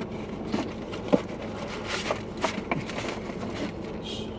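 Takeout food packaging being handled: a string of sharp clicks and crackling rustles, loudest about a second in, over a steady low hum in the car.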